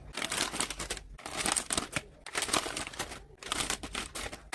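Plastic snack packets crinkling as they are handled and packed into a container, in irregular rustles with short pauses about once a second.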